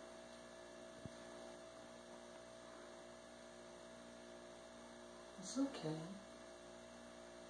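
Steady electrical hum with a few fixed tones under low room tone, a faint click about a second in, and a brief soft sound with a low gliding pitch about five and a half seconds in.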